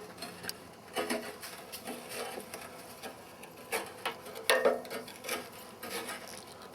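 Metal tools clinking, knocking and scraping on an old wood stove's rusted fittings, with irregular sharp strikes that ring briefly; the loudest comes about four and a half seconds in.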